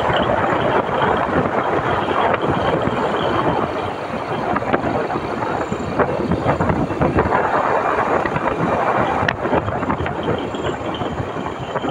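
A motorcycle ride heard from the bike: a steady rush of wind and road noise with the engine running underneath, and a single sharp click about nine seconds in.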